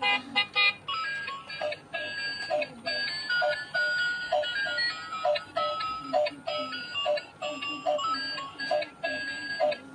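A simple electronic tune of short, beeping pitched notes repeating in a steady rhythm.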